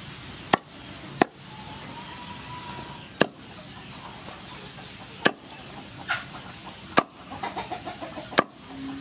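Large kitchen knife chopping through deep-fried crispy pork belly onto a wooden cutting board: six sharp chops at uneven intervals.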